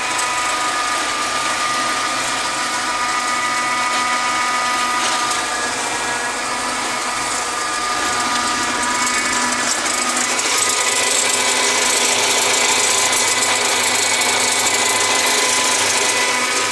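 Tractor engine running with a Hayes 2.4 m flail mower spinning behind it as it cuts thick wetland grass. The deck is lifted slightly off the ground, so the rotor keeps running steadily without bogging down. The steady mechanical noise carries a few held tones and grows a little louder about ten seconds in.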